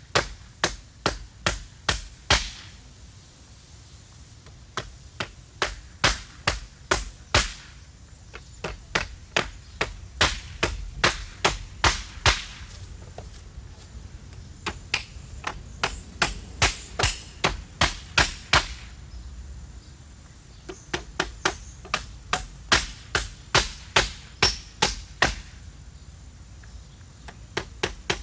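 A sound-effect recording of sharp knocks or blows, about two or three a second in runs, broken by short pauses of one to two seconds.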